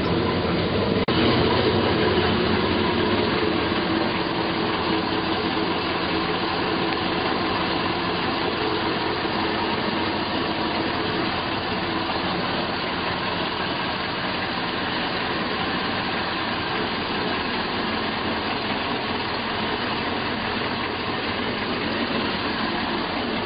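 A steady mechanical drone, like an engine or machine running, unchanging throughout, with one sharp click about a second in.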